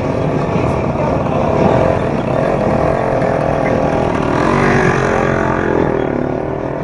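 A motor vehicle engine running close by, its pitch wavering in the middle, over a steady din of street and crowd noise.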